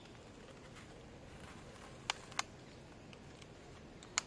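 Three short, sharp clicks or taps of small hard objects over faint background noise: two in quick succession about two seconds in, and one more near the end.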